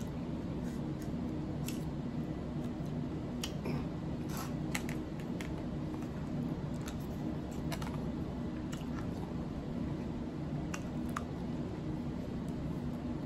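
Close-up eating sounds: chewing and small wet mouth clicks, with a plastic fork and spoon clicking and scraping on a plate, scattered irregularly over a steady low hum.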